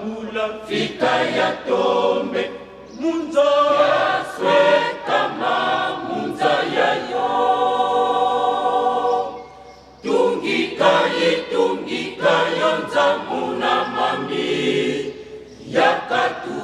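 A congregation singing a hymn together in many voices, phrase after phrase, with one long chord held near the middle before a brief break and the next phrase.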